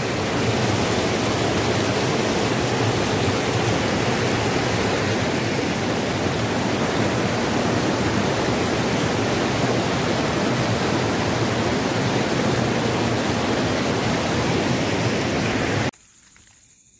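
Rushing water of a small rocky waterfall cascading over stone ledges, a steady close-up hiss that cuts off suddenly near the end.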